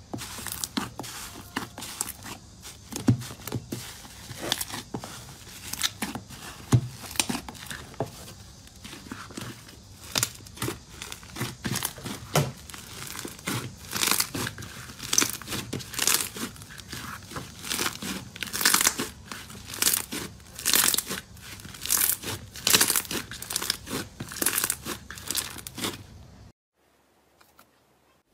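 Slime being pressed and squeezed by hand, giving a dense, irregular run of sticky clicks and pops as trapped air is squashed out. The sound cuts off suddenly near the end.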